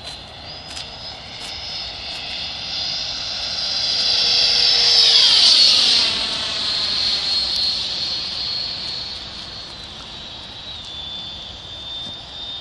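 Taft Hobby Valkyrie RC jet's 90 mm electric ducted fan whining in flight. The high whine builds to its loudest about five seconds in, then drops in pitch as the jet passes and fades away.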